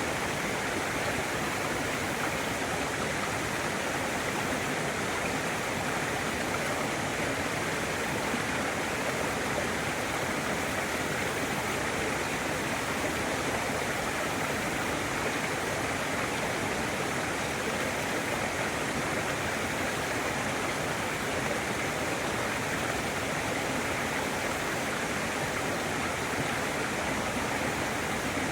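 Waterfall pouring steadily: a continuous, even rush of falling water.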